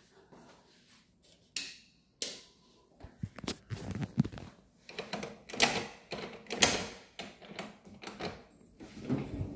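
A door's lock and handle clicking and rattling as the door is unlocked and opened: two sharp clicks, then a run of irregular clicks and knocks.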